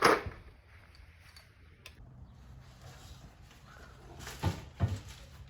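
Clunks of motorcycle parts being handled: one sharp knock at the start and two more close together near the end, with a faint steady hum between.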